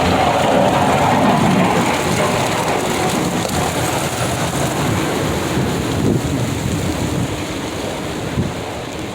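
Storm wind blowing across the microphone: a loud, continuous rushing with irregular low rumbling buffets, easing slightly toward the end.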